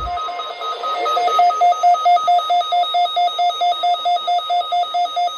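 Rapid electronic alert beeping, about four beeps a second, from a weather radio receiver set off by the NOAA Weather Radio required weekly test; the beeps grow louder about a second in.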